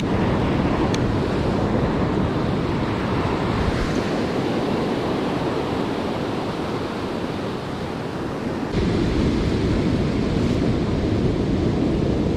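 Ocean surf washing against the rocks, a steady rush with wind buffeting the microphone. It gets suddenly louder about nine seconds in.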